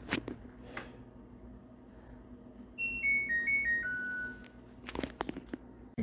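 LG Direct Drive dishwasher's control panel playing its short electronic chime: about six beeping notes, mostly stepping down in pitch and ending on a longer, lower note. A few sharp knocks of handling come just before and after it.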